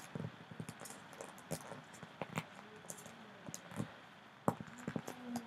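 Paper being folded and creased by hand: scattered soft crinkles and small taps, with one sharper tap about four and a half seconds in.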